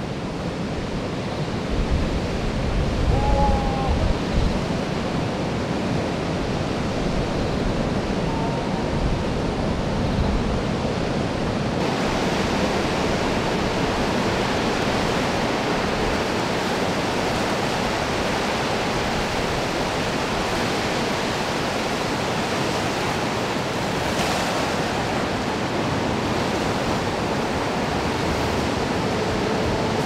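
Heavy typhoon surf breaking: a steady roar of crashing waves and white water. About twelve seconds in, the sound shifts to a brighter hiss.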